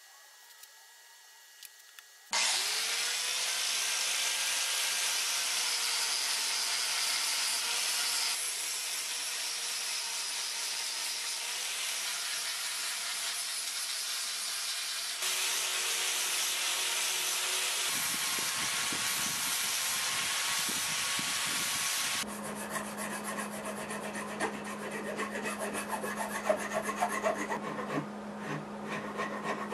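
Angle grinder shaping a wooden knife handle of osage orange and cedar. After about two seconds of quiet the grinder starts and runs with a steady grinding sound. Some twenty seconds in, it gives way to quick, rough strokes of a file or rasp on the wood.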